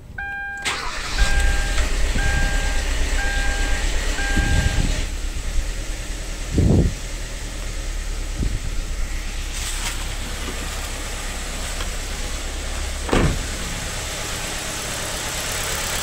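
Dashboard warning chime beeping five times as the ignition comes on, while the freshly rebuilt Kia Rio four-cylinder engine cranks and starts. It then runs unevenly with a couple of louder thumps; the mechanic blames two dead ignition coils for the rough running and shaking.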